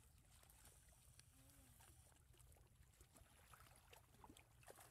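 Very faint sloshing and splashing of shallow muddy water as a mesh net is dragged through it by people wading, with scattered small splashes over a low steady rumble.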